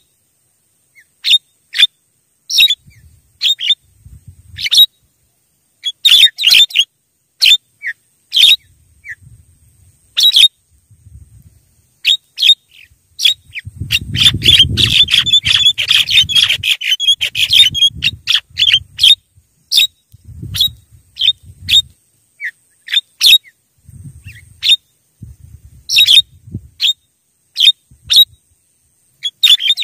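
Javan mynas (jalak kebo) calling: short, sharp notes at irregular intervals, breaking into a dense run of chattering from about 13 to 18 seconds in. Low rumbling bumps sit beneath some of the calls.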